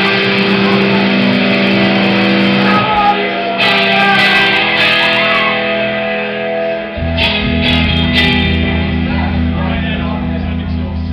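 Live rock band playing: electric guitars ring out held chords with cymbal crashes, and about seven seconds in a deep low end comes in under them.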